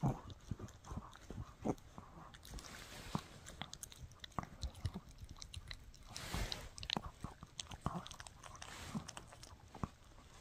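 A Shih Tzu chewing and gnawing on a bully stick: irregular, scattered wet clicks and crunches with pauses, and a short breathy hiss about six seconds in.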